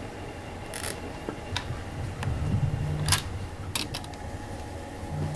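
Handling noises as a cylinder head is lowered onto the engine block over a sheet of pressure-sensitive film: a brief paper rustle and several sharp clicks of metal meeting metal, the loudest just past three seconds in, with a short low hum in the middle.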